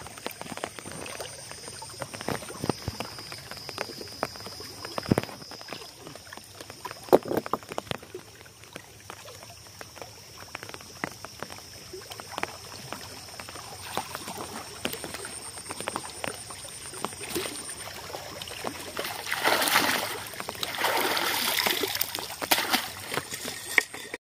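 Shallow water sloshing and splashing against shoreline rocks as a mesh keep net holding freshly caught rohu is dipped and moved in it, louder in a few surges near the end, with scattered small knocks and clicks before that.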